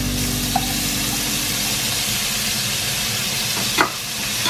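Beef and onion sizzling steadily in hot olive oil in a sauté pan, with sharp knocks of a spatula against the pan about a second in and again near the end.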